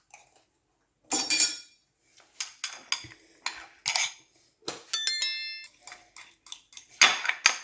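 A metal spoon scrapes and clinks in a small metal pot as crushed garlic and stiff honey are mixed together. The strokes are irregular, with one ringing clink about five seconds in.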